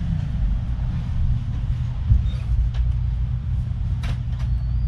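Steady low rumble of a passenger ferry's machinery, heard through the hull inside a cabin, with a few faint clicks over it.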